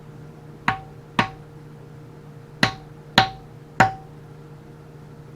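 Five sharp taps, each with a brief metallic ring: two close together, then after a pause three more, over a steady low hum.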